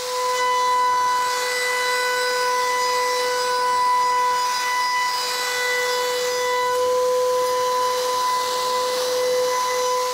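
High-speed router spindle of a woodworking moulding machine running under load as its profile bit cuts along a solid-wood board, bearing removed: a steady high-pitched whine over the hiss of the cut.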